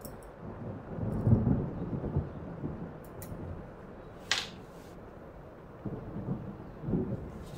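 Dull low knocks and rumbling as metal tweezers work shells into the gravel of a water-filled glass jar, loudest about a second in and again near the end. A single sharp click comes a little past the middle, as the tweezers are set down.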